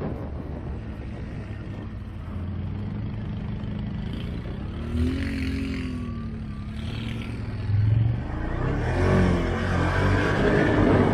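ATV engine running, its revs rising and falling about halfway through and again later, growing louder in the last few seconds.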